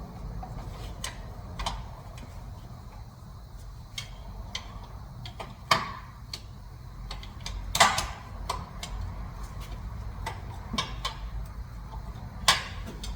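Scattered irregular clicks and knocks, three of them louder, over a low steady rumble.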